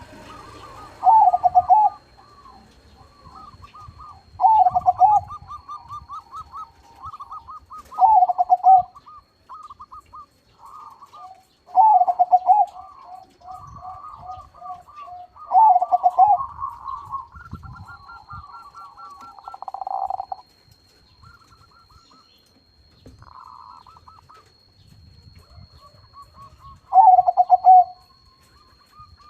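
Perkutut crossing (zebra dove crossbreed) cooing repeatedly. A loud, drawn-out low coo comes every few seconds, with quick, higher rolling notes between. The calls pause for several seconds, and one last loud coo comes near the end.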